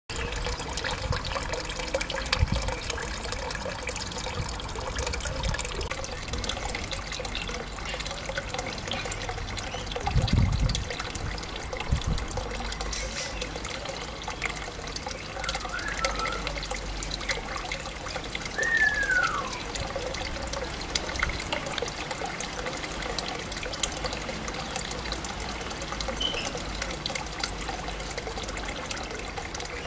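Steady trickling of water from a garden pond. About two-thirds of the way in, a grey parrot gives a short whistle that falls in pitch, after a fainter chirp a few seconds before. There are a few low bumps, the loudest about a third of the way in.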